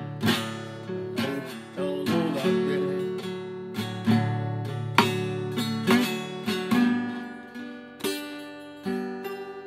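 Acoustic guitar strummed on the beat in an instrumental passage of a country-style song, with no singing, each chord sounding about once a second and ringing out.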